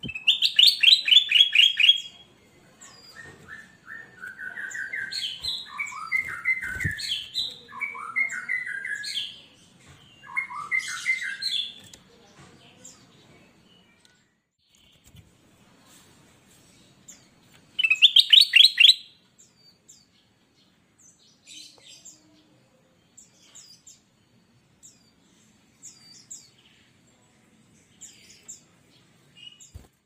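A caged kutilang emas (black-crested bulbul) singing. It opens with a fast string of bright notes, then gives lower warbling phrases, with another fast string of notes about eighteen seconds in. Near the end only short faint high notes are left, and a soft knock falls about seven seconds in.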